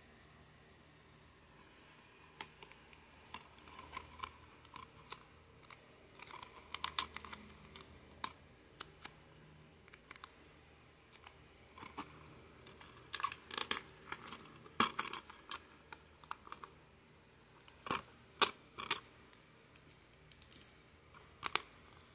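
Plastic DVD keep case handled by hand: scattered clicks, taps and light rustles as it is turned and tilted, coming in short clusters with quiet gaps between.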